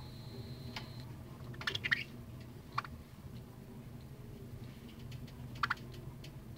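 A budgerigar making a few short, soft clicks and chirps while its head is stroked: a quick cluster about two seconds in, a single one a second later and a pair near the end, over a low steady hum.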